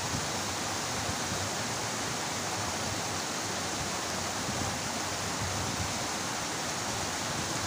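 Steady rushing of water pouring over a small drop into a muddy stream.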